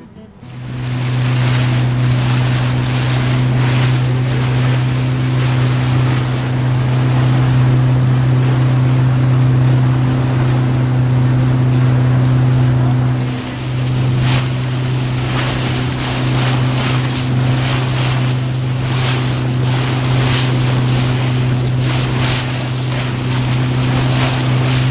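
Outboard motor of a small boat running steadily at cruising speed over open sea, a constant low hum with wind buffeting the microphone and water splashing against the hull. The engine dips briefly about halfway through.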